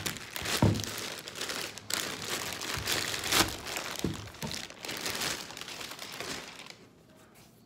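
A clear plastic bag crinkling and rustling as a leather boot is pulled out of it, with a few dull knocks of the boot being handled. It stops near the end.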